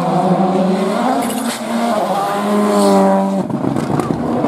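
Rally car engine running at high revs, its pitch climbing for about a second and then dropping off abruptly, followed by a rougher noisy stretch.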